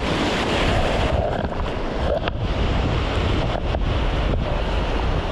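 Sea surf washing and foaming over the shore rocks close by, with wind buffeting the microphone.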